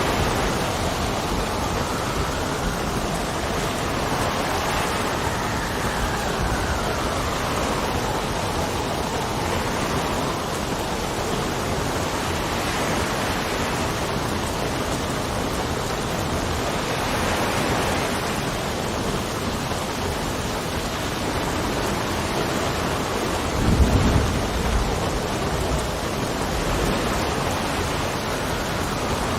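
Steady rain with wind gusting, the wind's whistle slowly rising and falling in pitch. A brief low rumble comes near the end.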